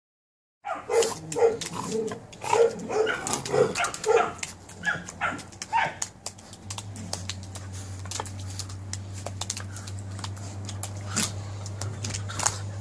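Perro de Presa Canario puppy making short, repeated barks, about two or three a second for the first few seconds, while tugging on a rope toy. After that come many sharp clicks and scuffs, and a steady low hum starts about halfway through.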